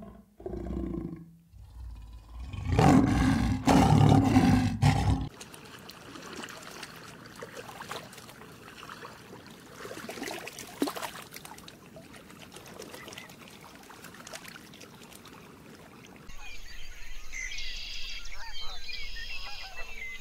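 A big cat roaring: a few loud, deep roars over the first five seconds, stopping abruptly. Then a quieter stretch of background noise, and from about sixteen seconds in, repeated high bird calls.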